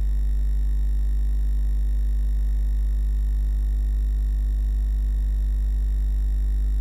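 Steady electrical hum with a buzz of many overtones, unchanging in level throughout.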